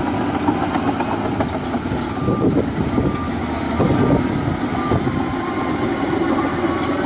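Heavy diesel machinery running steadily, a dense low rumble with occasional faint clanks.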